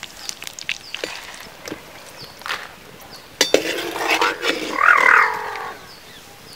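Perforated metal skimmer clattering and scraping against a black cooking pot as dried red chillies are stirred in hot oil, with scattered light clicks before it. About four seconds in, a loud animal call rises and falls for a second or two over the stirring.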